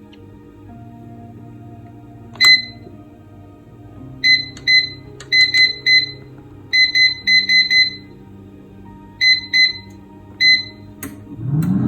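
Proscenic air fryer's touch control panel beeping, one short high beep per button press, about fourteen beeps in irregular clusters as a cooking preset is selected. Background music plays underneath, and a low rising whir starts right at the end.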